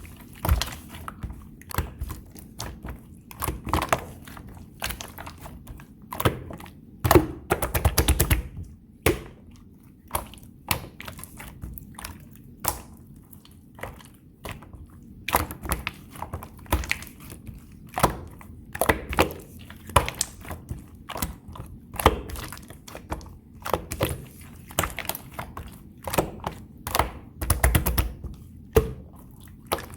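Slime being squished, pressed and mixed by hand, making many irregular sharp clicks and pops, with louder flurries now and then.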